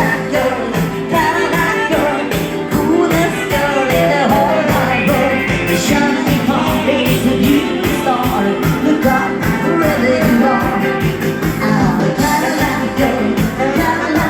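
Upbeat rock-and-roll dance-band music with a quick steady beat and a melody line over it.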